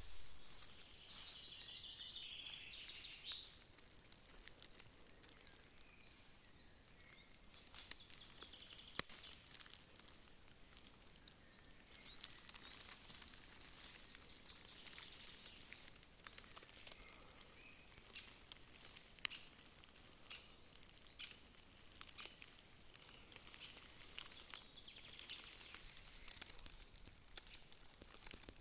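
Faint outdoor ambience: a bird gives a short trill in the first few seconds, then scattered light ticks and crackles over a low hiss.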